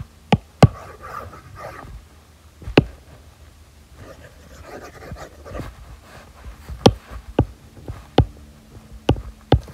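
Plastic stylus tip tapping and sliding on a tablet's glass screen while erasing handwriting: about eight sharp taps at irregular intervals, with faint soft rustling between them.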